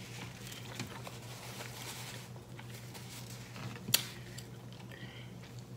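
A fork picking and pulling meat from a roasted turkey leg: soft, scattered scrapes and squishy ticks, with one sharp click about four seconds in, over a faint steady low hum.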